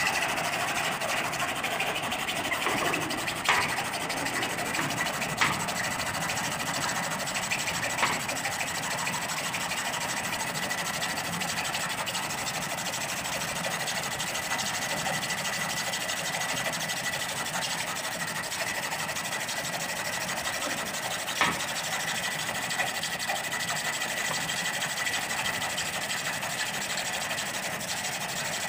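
Hand hacksaw cutting through a square steel tube: a steady rasping of the blade on the metal, with a few sharp clicks.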